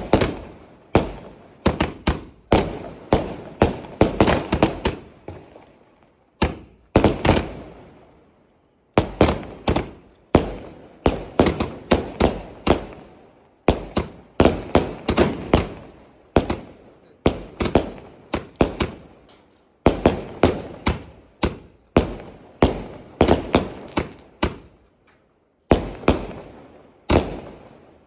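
A 240-shot firework cake firing shell after shell: rapid volleys of sharp bangs a few tenths of a second apart, broken by a couple of short pauses.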